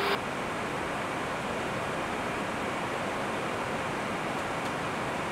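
Airbus A321 cockpit in flight: a steady, even rush of airflow noise with no changes.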